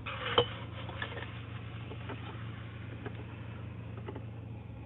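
Apple pie cream soda poured from a glass bottle into a glass, then fizzing with many small ticks, over a low steady hum.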